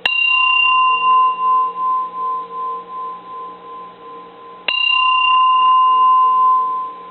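Bronze Japanese Buddhist personal bell struck twice with a wooden striker, about four and a half seconds apart. Each strike rings on in a long, clear tone that wavers in slow pulses as it dies away, while its higher overtones fade within a couple of seconds.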